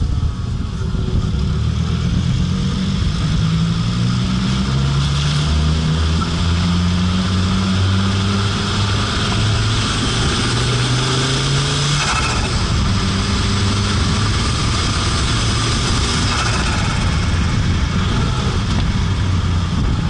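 Fiat Marea Turbo's turbocharged five-cylinder engine pulling under acceleration, its pitch rising. About twelve seconds in, the pitch breaks off with a short flutter from the turbo as the throttle lifts, and the engine then runs at lower revs.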